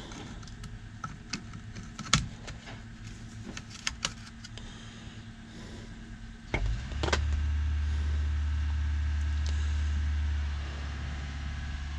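Light clicks and taps of small steering-column parts being handled, then a steady low rumble starts suddenly about six and a half seconds in and carries on.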